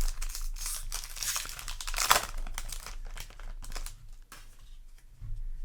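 Foil wrapper of a Yu-Gi-Oh! booster pack crinkling and being torn open, with the loudest rip about two seconds in. The crackling then gives way to quieter, scattered handling clicks.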